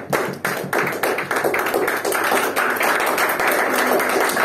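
A small audience clapping, in an even rhythm for about the first second and then loose and continuous.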